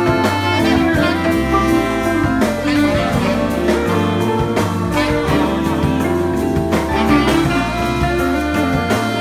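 Live band with a horn section of saxophone, trumpet and trombone playing together over drums and a stepping bass line.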